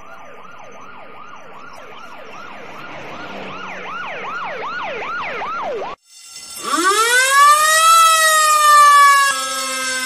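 Fire truck sirens, one after the other. First a US fire engine's siren yelps quickly up and down, a few cycles a second, growing louder, with a second yelping siren overlapping it about halfway through. It cuts off about six seconds in, and an Indonesian fire truck's siren winds up from a low pitch, peaks and slowly falls, with a low steady tone joining near the end.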